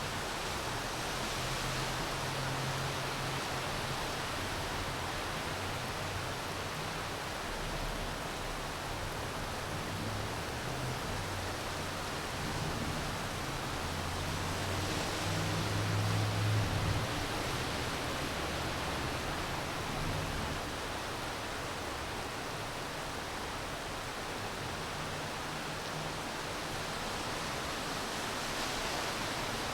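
Steady rain falling, an even hiss throughout. A low rumble swells about halfway through, peaks, then fades.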